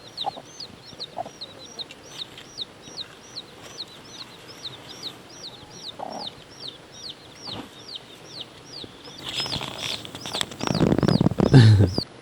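Baby chick peeping steadily, about three high chirps a second, each dropping in pitch. Near the end a louder, lower sound comes in: the mother hen making a noise.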